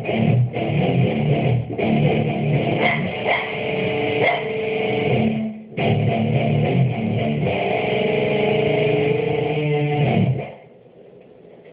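Guitar-led music playing, with a short break about five and a half seconds in, then cutting off suddenly near the end, leaving only faint background hiss.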